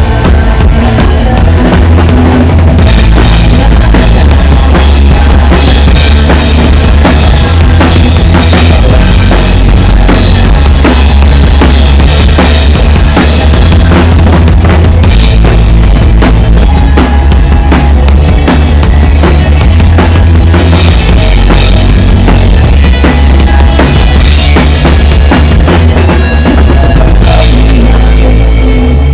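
Rock band playing live, heard close to the drum kit: bass drum and snare hits over a heavy bass line that changes notes every second or two, recorded very loud.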